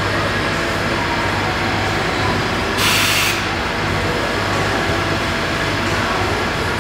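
Amada AE 255 NT punch-nibbling machine at work, punching and nibbling a steel sheet as the carriage moves it under the turret: a dense, steady machine clatter over a steady hum, with a short hiss about three seconds in.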